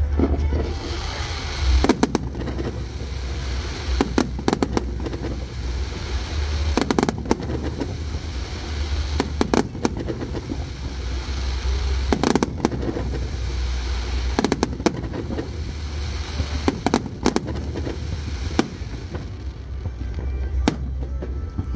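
Aerial fireworks shells bursting in quick clusters every couple of seconds, over a steady crackle from the sparkling stars.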